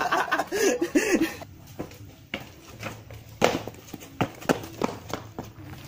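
A man laughing for about the first second and a half, then a run of quick, uneven footsteps of someone running and stepping in shoes on a hard path.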